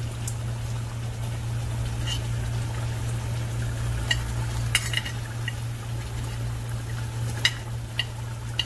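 A metal spoon clinking and scraping against a ceramic plate and the pot as ground spice is spooned into a curry, in scattered irregular taps. Underneath runs a steady low hum.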